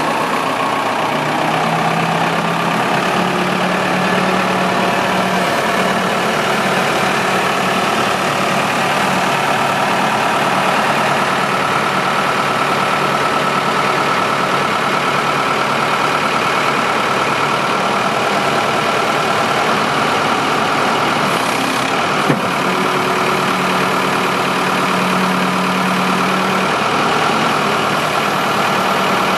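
Diesel engine of a 2002 Case 580M backhoe running steadily at idle. There is a single sharp click about three-quarters of the way through.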